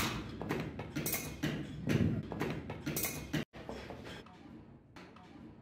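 Hammer striking a punch held in pliers against a truck brake shoe, working on the old lining: a run of metal-on-metal blows, with the loudest near the start and about two and three and a half seconds in. After a sudden break, quieter, sparser knocks follow.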